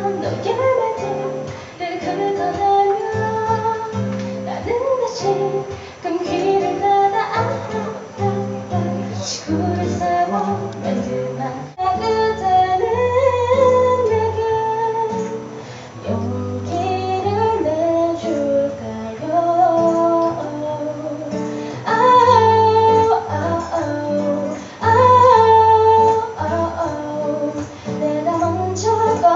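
Live acoustic music: a woman singing to a strummed and picked acoustic guitar, with a sudden break about twelve seconds in before the song resumes.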